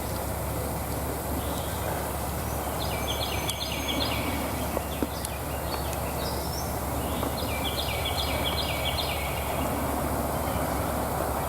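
Steady outdoor background noise, with a small bird singing a quick run of rapidly repeated high notes three times: about three seconds in, about six seconds in, and about eight seconds in.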